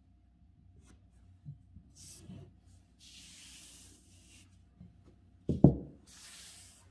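Hands rubbing and sliding over a sheet of calligraphy paper, in three soft rustling strokes, with a single sharp thump just after the middle.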